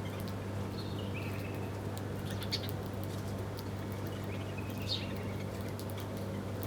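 Wild birds giving a few short, scattered chirps over a steady low hum and background hiss.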